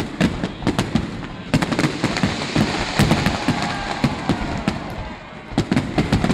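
Aerial firework shells bursting in quick succession: many sharp bangs, in a dense volley around the middle and another cluster near the end, with crackling between the bangs.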